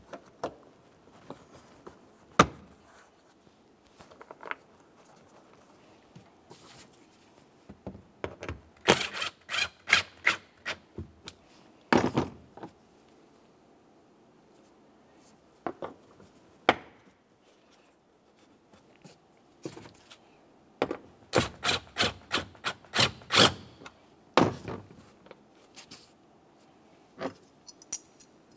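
Hands fitting plastic trim hooks to a car's cargo-area side panel and snugging their mounting bolts with a small hand ratchet. Scattered knocks and taps, with two runs of quick clicks about nine and twenty-two seconds in.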